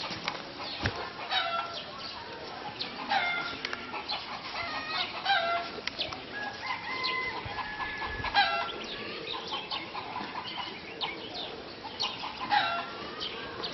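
Chickens clucking and calling: short calls every second or two, with one longer, steadier call a little past the middle.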